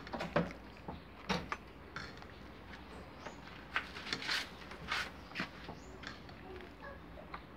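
Metal spoon stirring thick, just-boiled gelatin mixture in a rice cooker's metal inner pot: irregular clinks and scrapes of the spoon against the pot.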